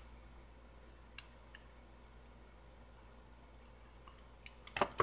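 Scattered light clicks and taps of a hand craft tool and small paper pieces handled on a craft mat: a few single taps in the first two seconds and a quick cluster of louder ones near the end.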